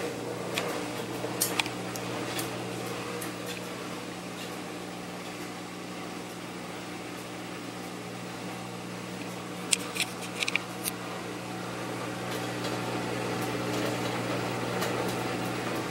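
Washing machine running with its laundry load: a steady motor hum, with a few sharp clicks about ten seconds in.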